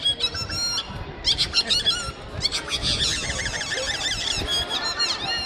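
Rapid runs of high-pitched squeaky chirps and warbles, several a second, made by a street performer costumed as a baby in a pram.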